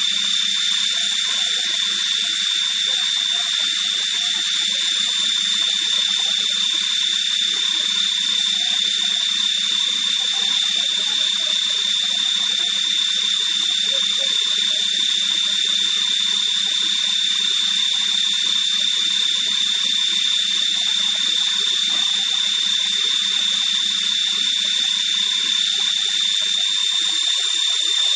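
Leadwell VE vertical machining centre running: a loud, steady hiss with a high, steady whine over it and a low hum underneath that stops near the end.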